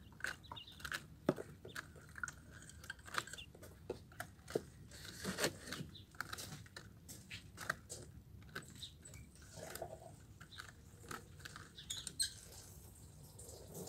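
Quails pecking at and tearing fresh kale leaves: quiet, irregular pecks and leaf rustles.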